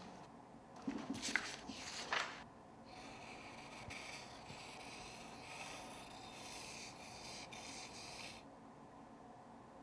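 Paper sheets rustling a few times, then a pencil scratching steadily over drawing paper for about five seconds and stopping suddenly.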